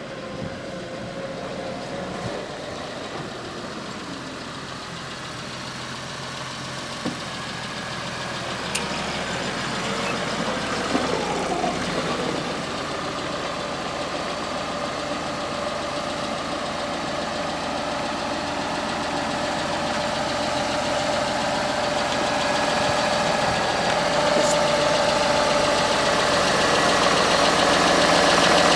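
Valtra tractor's diesel engine running as the tractor drives off and comes back, growing steadily louder as it approaches. About ten to twelve seconds in, the engine pitch rises and falls.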